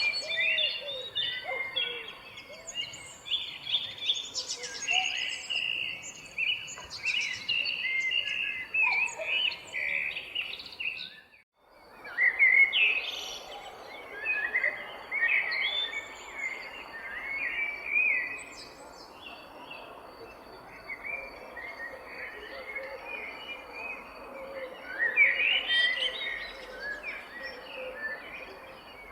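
Several songbirds chirping and singing over one another in a busy morning chorus, with a faint steady thin high tone underneath. The sound drops out briefly about eleven seconds in, then the birdsong resumes.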